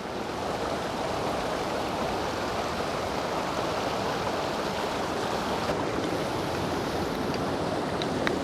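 Steady rush of a rocky creek, its water running over and between boulders.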